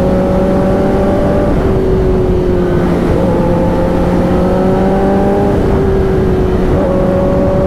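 A liter-class (about 1000 cc) sport motorcycle's engine running under way at road speed, its pitch climbing slowly and stepping back down a few times. A steady rush of wind noise runs underneath.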